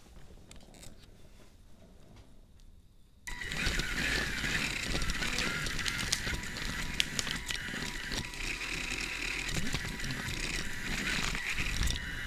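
A line-following robot's drive motors switch on abruptly about three seconds in and run on, a steady whine with constant rattling and clicking as the robot drives. Before that there is only quiet room sound.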